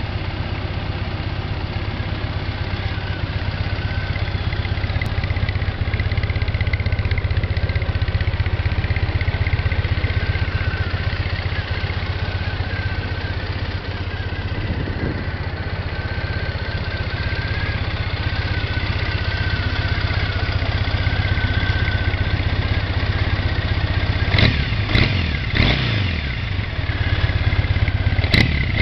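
2015 Triumph Thruxton 900's air-cooled parallel-twin engine idling steadily, then blipped several times near the end, the revs rising and falling quickly.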